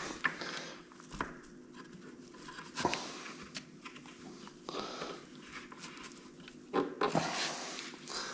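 Faint, scattered knocks and clicks from hands handling and fitting the parts of a wooden chair frame.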